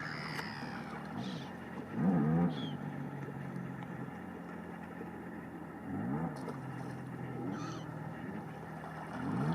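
Wetland animal calls: three low, hoarse, arching calls about four seconds apart, with short high chirps from small birds in between, over a steady low hum.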